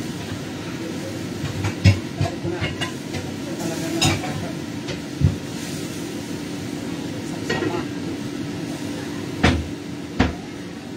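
Cooking utensil knocking and scraping in a pan on the stove, a string of sharp knocks with the loudest about two seconds in and twice near the end, over a steady hum.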